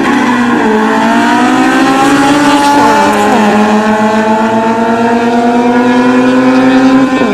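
A race car's engine at full throttle accelerating hard down a drag strip. Its revs climb steadily in each gear and drop sharply at upshifts about three and seven seconds in.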